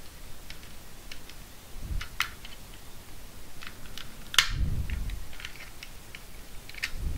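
Small plastic clicks and scrapes as pry tools work along the seam of a Samsung TV remote's clip-together case, with a louder sharp snap about four seconds in as a clip lets go, and a few dull bumps from the remote being handled.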